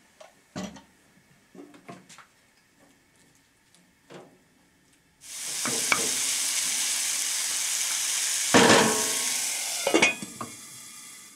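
A few faint taps and clinks, then about five seconds in a loud, steady sizzle of banana pieces frying in olive oil in a cast iron pan, with a couple of knocks and scrapes of a wooden spatula. Near the end a lid is set on the pan with a clank and the sizzle turns quieter.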